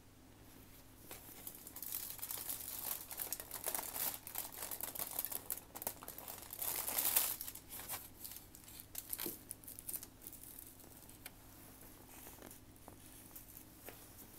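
Dense crackling and crunching of dry, compacted starch chunks being chewed close to the microphone, loudest about seven seconds in, then thinning to faint crackles for the last few seconds.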